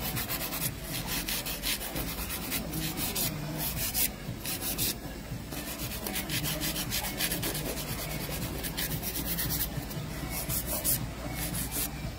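A hand nail file rasping back and forth over an acrylic powder nail, about three or four quick strokes a second with a couple of short pauses. The file is laid flat to shape the nail's sides and tip after the acrylic has set.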